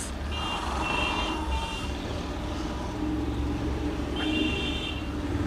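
Steady low rumble of a running vehicle engine, with short high-pitched beeping tones in two bursts, the first about a third of a second in and the second about four seconds in.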